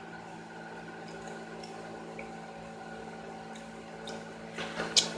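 Quiet eating sounds: a few soft mouth clicks and smacks of chewing, with a sharper click just before the end, over a steady electrical hum.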